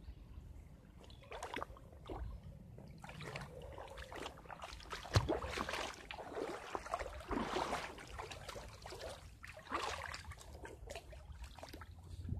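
Footsteps splashing and sloshing through a shallow creek, an uneven step or two each second, with one sharper splash about five seconds in.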